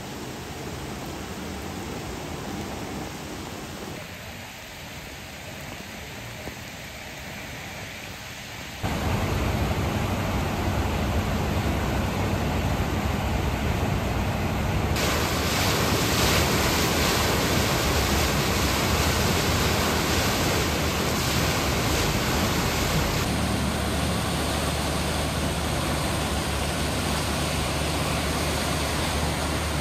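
Flooded, muddy river rushing steadily, with rain and a storm drain pouring into it. About nine seconds in it turns abruptly louder and fuller: the churning rapids of the swollen river in flood.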